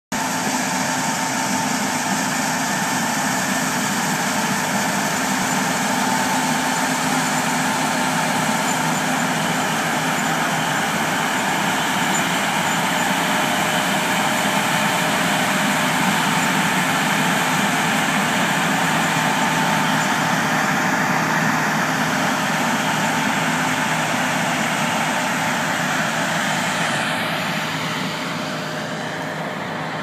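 John Deere S680 combine with a 635FD flex draper header running under load while direct-harvesting pinto beans: a steady drone of engine and threshing machinery with a thin steady whine. It fades near the end as the combine moves away.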